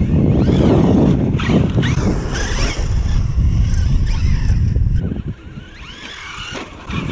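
Traxxas Hoss 4x4 VXL RC monster truck's brushless electric motor whining, rising and falling in pitch as it is throttled on and off across dirt, over heavy wind buffeting the microphone. It gets quieter after about five seconds.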